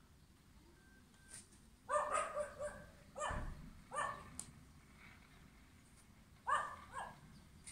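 Dogs barking over and over in short volleys: a quick run of several barks about two seconds in, single barks about a second apart after that, and a pair of barks near the end.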